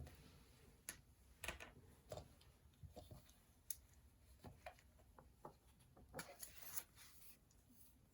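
Faint writing on paper: irregular short scratchy strokes and small clicks, with a longer run of scratching about six seconds in.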